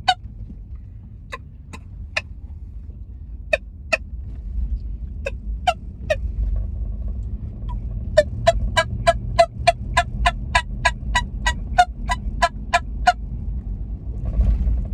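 3D-printed turkey tube call blown in short, sharp turkey-like notes: a few scattered single notes, then a fast even run of about three to four notes a second for some five seconds. A low rumble runs underneath.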